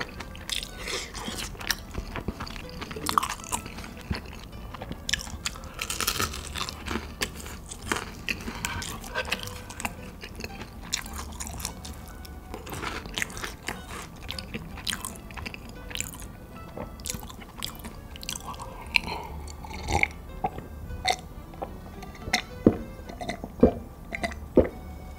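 Close-miked eating: a person biting and chewing food, with many sharp, irregular clicks of mouth sounds, over background music.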